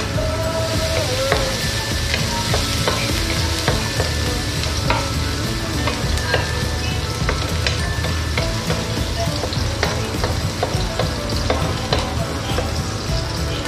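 Chopped garlic sizzling in hot oil in a stainless steel wok while a wooden spatula stirs it, with frequent short clicks and scrapes of the spatula against the pan.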